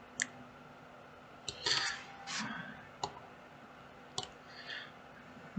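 Computer mouse clicking: four sharp single clicks about a second apart, with faint soft noises between them.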